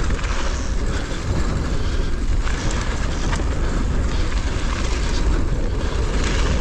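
Steady wind noise buffeting an action camera's microphone, with a heavy low rumble, mixed with the tyre noise of a mountain bike riding a dirt jump trail at speed.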